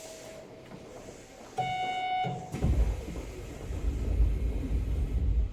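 Door-closing chime inside a Hanshin 1000 series train car: a short electronic beep about a second and a half in, followed by a loud low rumble as the doors slide shut.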